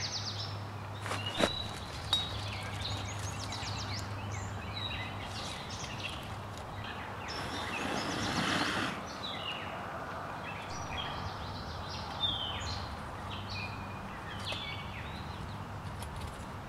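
Birds chirping and singing, with a few sharp knocks as sticks are loaded into a small metal wood-burning camp stove. About eight seconds in comes a long, even rush of breath blown into the stove to fan the fire.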